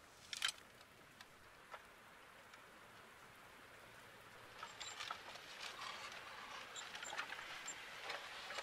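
A rusty metal toy trailer being dragged through loose soil on a chain. There is a sharp clink about half a second in, then from about halfway on a gritty scraping with many small crackles as dirt and pebbles grind under it.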